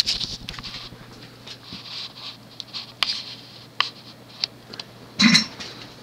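1989 Hunter Custom Home 42-inch ceiling fan running on medium speed: a steady low motor hum under the rush of air from the blades. Scattered light ticks are heard, and one louder knock comes about five seconds in.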